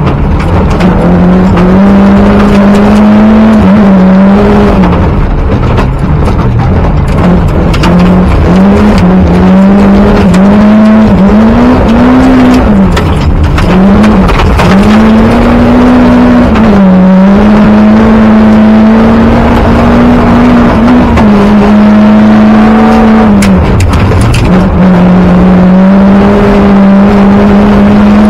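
Rally car's engine heard from inside the cabin at stage speed on gravel, loud throughout, its note held high for long stretches and dipping briefly and climbing again many times as the driver shifts and lifts for corners, with constant tyre and gravel noise underneath.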